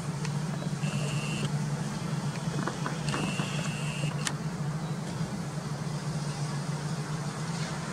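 Steady low hum of the city, with two faint high tones about one and three seconds in and a short click a little after four seconds.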